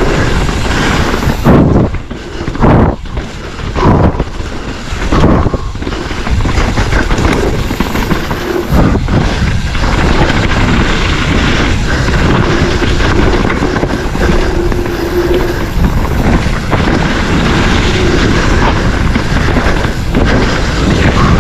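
Wind rushing over the camera microphone with tyre and trail noise from a mountain bike riding fast down a dirt trail, plus several loud thumps in the first five seconds.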